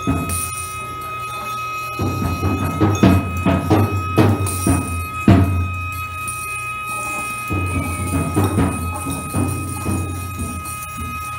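Live music performance: a low hum that drops out a couple of times, a steady high tone held through the middle, and irregular sharp percussive hits.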